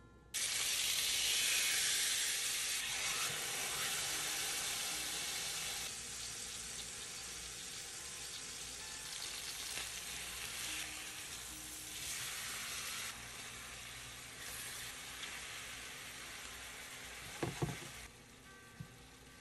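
Swai catfish fillets frying in hot vegetable oil in a pan. The loud sizzle starts suddenly, dies down in steps, and stops near the end, with a couple of knocks just before it stops.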